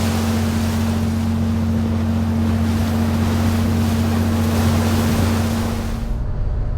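Nordhavn 50 trawler under way: its diesel engine runs with a steady low drone beneath wind and water rushing past. The rushing cuts off abruptly about six seconds in, leaving the engine hum.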